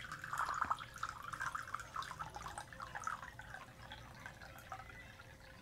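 Water poured in thin streams from two glasses into two ceramic mugs, a steady trickle and splash into the water already in the mugs that grows slightly fainter toward the end.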